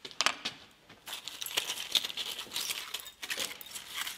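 Crushed debris from a pressed data storage device clinking and crackling as a gloved hand lifts it off the steel anvil, small fragments tinkling onto the metal; a few clicks at first, then a denser run of crackles from about a second in.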